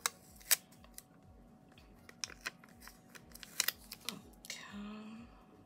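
Paper sticker being peeled off its backing and pressed onto a planner page: a scatter of sharp paper crackles and fingernail clicks, loudest about half a second in and again around three and a half seconds. A short hum of voice comes near the end.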